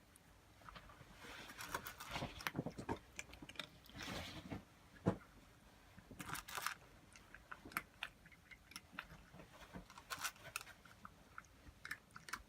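Cat chewing and crunching food in irregular short bites.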